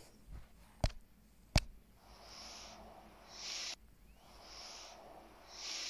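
Two sharp clicks, then two rounds of soft breathing close to a phone microphone, each a quieter breath followed by a louder one that swells and cuts off suddenly.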